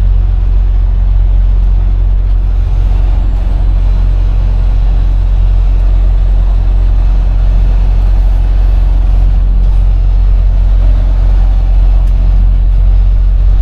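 Semi-truck diesel engine running at low speed, heard from inside the cab as a steady low drone.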